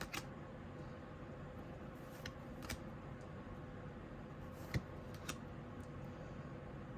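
Tarot cards being handled and flipped through one at a time: a handful of scattered soft clicks and taps of card against card over a faint steady hum.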